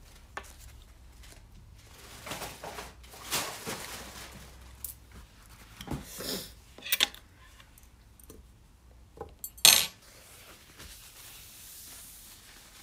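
Dishes and cutlery being handled: a scattered series of clinks and knocks, some with a short ring. The loudest is a sharp knock about ten seconds in.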